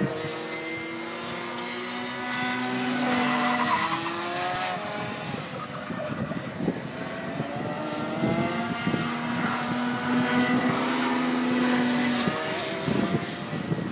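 Rotax Max 125 cc two-stroke kart engines racing on the circuit, several overlapping, their pitch rising and falling with the throttle. Twice an engine holds a steady high note for a few seconds at full throttle.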